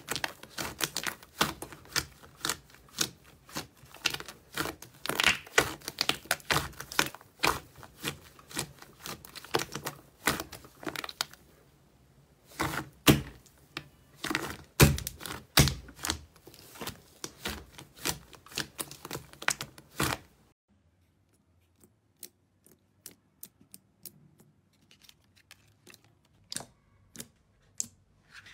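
Thick pale-blue slime being squeezed and kneaded by hand in a glass bowl, giving a dense run of rapid sticky clicks and pops, with a short pause about twelve seconds in. About twenty seconds in it cuts to clear green slime being pressed, with only sparse faint clicks.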